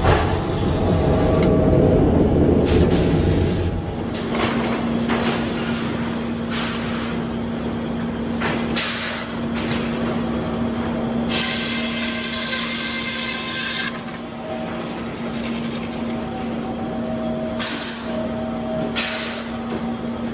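Sawmill machinery running: first a loud, heavy rumble of the conveyors and saws, then a large circular head saw spinning free with a steady hum while no log is in the cut. Short bursts of hissing come and go, with a longer one of two or three seconds in the middle.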